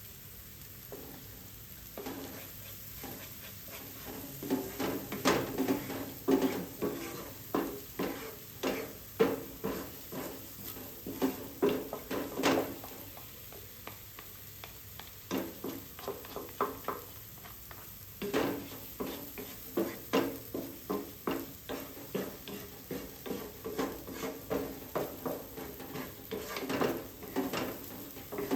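A utensil stirring and scraping food in a frying pan of curry, with a faint sizzle underneath. The scrapes come in quick runs, with a pause of a few seconds around the middle.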